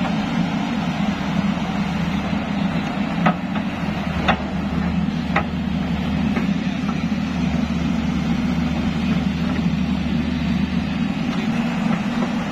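Caterpillar excavator's diesel engine running steadily as its steel bucket scrapes soil across hard ground, with three sharp knocks about a second apart, a few seconds in, as the bucket strikes the ground.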